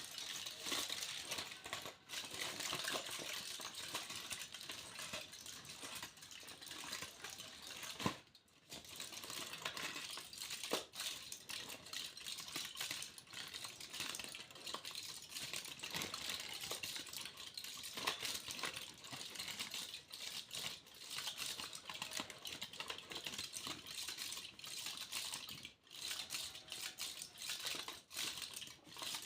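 Foil being crinkled and handled close to the microphone: a dense, continuous rustle of small crackles, with a sharp snap about eight seconds in followed by a brief lull.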